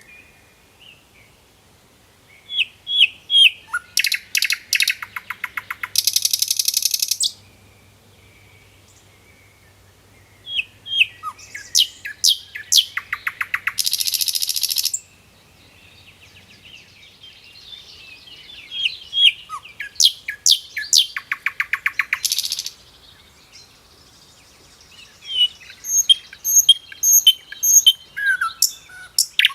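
A songbird singing the same song phrase four times, about every eight seconds: a few clear chirps, then a fast trill that ends in a harsh buzzy rattle.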